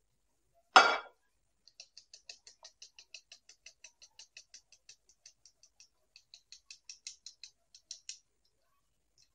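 Stainless steel mesh sieve being tapped and shaken over a steel bowl to sift gram flour: one loud knock about a second in, then a rapid, even run of light ticks, about five a second, for several seconds.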